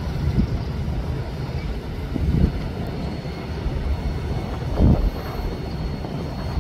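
Low, steady rumble of a high-speed catamaran ferry's engines as it comes in across the water, with wind buffeting the microphone in gusts about two seconds and five seconds in.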